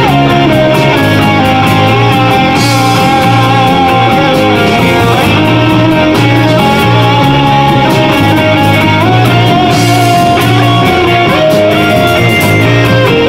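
A live extreme progressive metal band playing: electric guitars carry a slow melodic line of held notes over bass guitar and drum kit, loud and steady.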